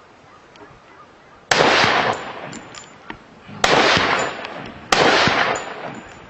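Three rifle shots, the first about a second and a half in, then two more about two seconds and just over a second later, each sudden and loud and trailing off over about half a second.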